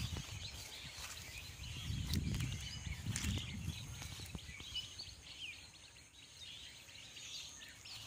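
Outdoor ambience: scattered faint bird chirps over a low rumble on the microphone, which swells about two seconds in.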